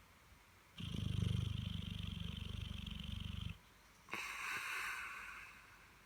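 Dogue de Bordeaux (French mastiff) snoring: a low rattling snore of about three seconds, then, after a short pause, a hissing breath that fades away.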